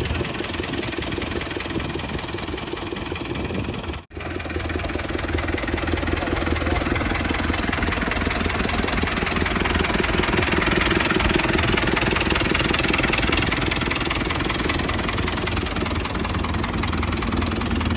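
New Holland tractor's diesel engine running steadily, driving a 14-inch tubewell pump through its PTO shaft. The sound cuts out for an instant about four seconds in.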